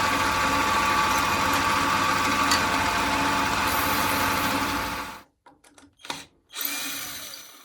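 Electric power tool running steadily with a constant tone, cutting off about five seconds in; a few short faint sounds and a brief fading sound follow.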